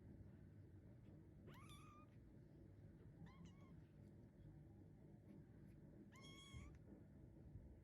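Young munchkin kitten meowing three times, high-pitched calls a couple of seconds apart, the last one the longest: a kitten crying for its mother.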